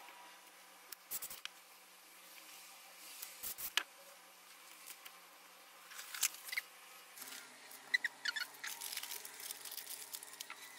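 Light taps and clicks of thin wood veneer squares being set down and pressed onto a glued stack, with a quick run of ticks about eight seconds in. A faint low hum starts about seven seconds in.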